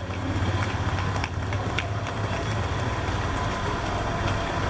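Steady low hum of a motor vehicle engine running close by, with a couple of faint clicks between one and two seconds in.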